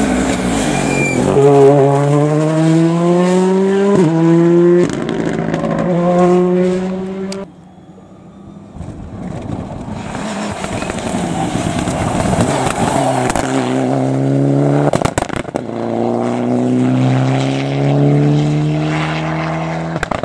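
Rally cars at full throttle, first a Ford Fiesta R5 and then a Mitsubishi Lancer Evolution. In the first third an engine's pitch climbs in three steps broken by quick upshifts, then the sound drops off abruptly. Another car runs through, with a quick burst of sharp cracks and engine revs climbing again near the end.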